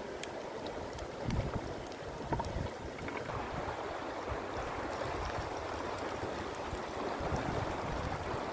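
A shallow river running steadily, with wind rumbling on the microphone and a few faint ticks in the first few seconds.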